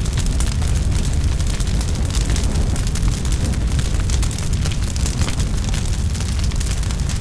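A large forest fire burning: a deep, steady rumble of flames with dense, irregular crackling and popping of burning wood.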